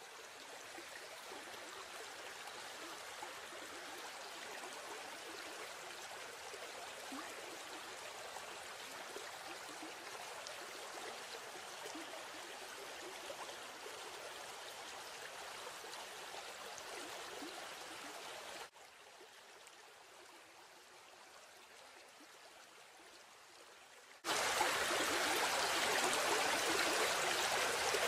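Steady rush of a stream and small waterfall. It drops abruptly quieter about two-thirds of the way through, then turns suddenly much louder for the last few seconds, where water spills over a rock ledge.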